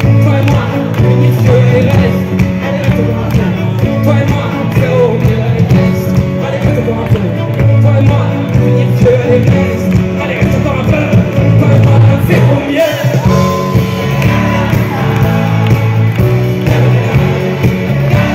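Live band music through a festival PA, recorded from the crowd: electric guitar over a steady bass, with singing voices drifting over the top.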